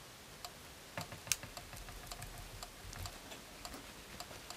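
Faint irregular clicks and light rubbing as a rubber brush with a flat tongue is dragged through soft encaustic wax on an anodised aluminium hotplate. The sharpest click comes about a second and a half in.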